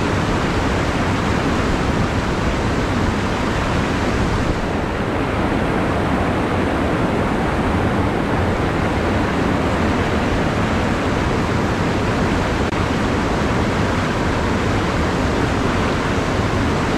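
A river in spate rushing over rapids close by: a steady, loud rush of white water from a stream swollen after heavy rain.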